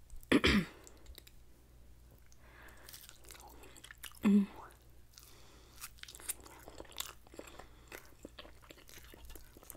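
Close-miked chewing of grilled kabob meat: soft wet mouth clicks and smacks, with a short hummed "mm" about four seconds in.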